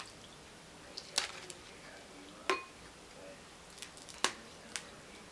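Sharp cracks and clicks from crab leg shells being cracked and pulled apart by hand, three loud snaps about a second and a half apart with lighter clicks between; one carries a brief clink.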